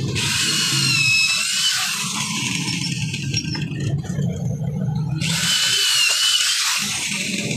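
Corded electric drill running in two bursts of about two seconds each, boring nail holes through bamboo ladder rails into the rungs, with a high whine.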